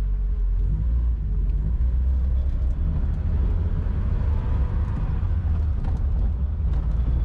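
BMW 2002's four-cylinder engine and road noise heard from inside the cabin while driving at traffic speed: a steady low rumble.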